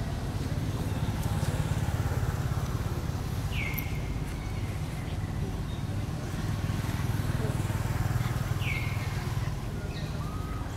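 A steady low rumble, with two short high calls about five seconds apart, each gliding down in pitch and then levelling off.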